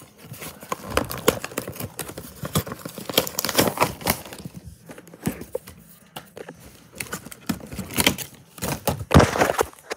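Clear plastic blister packaging and its cardboard backing being handled and pulled apart: irregular crackling, clicks and knocks, loudest about nine seconds in.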